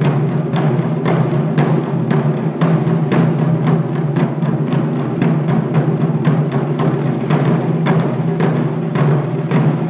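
Ensemble of Japanese taiko barrel drums (nagado-daiko on slanted stands) struck together with wooden sticks in a driving, steady rhythm of about two to three strokes a second, with deep ringing drum bodies under sharp stick hits.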